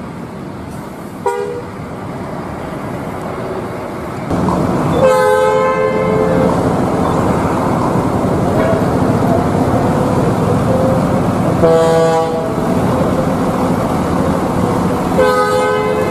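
Bus air horn sounding a steady multi-tone chord: a short toot about a second in, then three longer blasts of a second or more each. Under the blasts, a heavy vehicle's engine runs steadily from about four seconds on.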